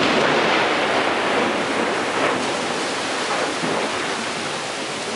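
Heavy rain pouring down in a thunderstorm, a steady rushing hiss that is loudest at the start and eases slightly.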